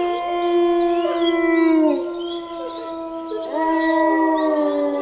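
Two long, steady animal calls, each about two seconds, the pitch dropping as each one ends.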